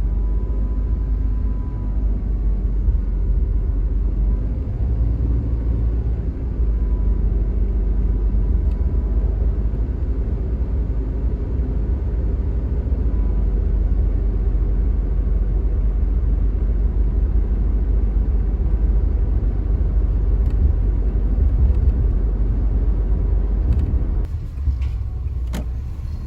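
Honda kei car's CVT under way, a loud steady low rumble with a faint high whine over it: the transmission howl that signals a failing CVT needing replacement. Near the end the sound changes and a few sharp clicks are heard.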